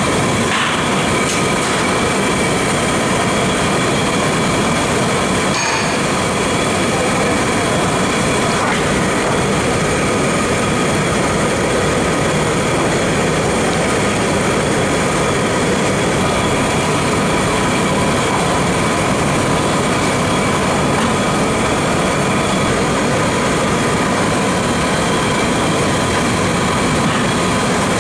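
Chicken pieces deep-frying in large iron woks of oil, a loud steady sizzle mixed with the hiss of the gas burners beneath. Two brief knocks come in the first six seconds.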